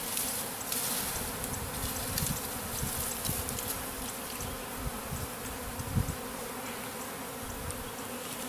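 Honeybee swarm humming steadily, a calm, peaceful hum rather than the high-pitched sound of angry bees: the swarm is not agitated. A brief low knock sounds about six seconds in.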